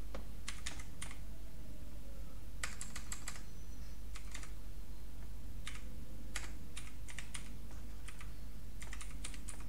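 Typing on a computer keyboard: short runs of keystrokes with pauses between them, over a steady low hum.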